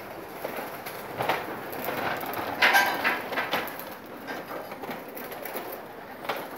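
Pigeons' wings flapping and clattering as the birds fly around the room, in uneven bursts with the loudest flurry about two and a half seconds in and a shorter one near the end.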